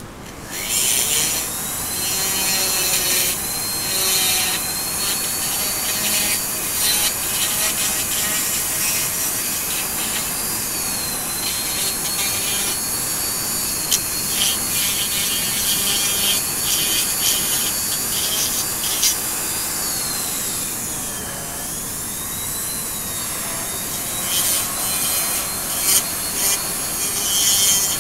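Foredom flex-shaft rotary carver spinning a carbide burr against wood, grinding and shaping a small carving. A high motor whine wavers in pitch, dipping briefly about three quarters of the way through, over a steady gritty rasp, with a few short louder bites of the burr near the end.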